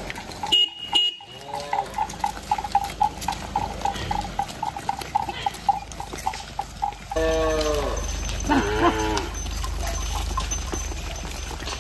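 A herd of cattle walking past, with a bell on one animal clinking in a quick, even rhythm for the first half and cattle mooing several times, twice in a row about seven seconds in. A steady low rumble sets in at the same point.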